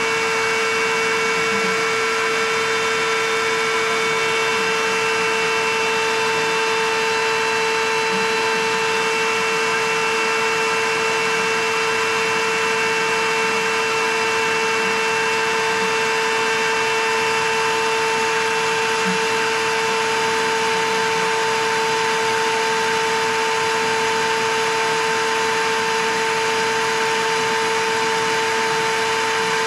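Shop vacuum running steadily with a constant whine, its hose sucking engine coolant out of a snowmobile's loosened bottom front cooler hose.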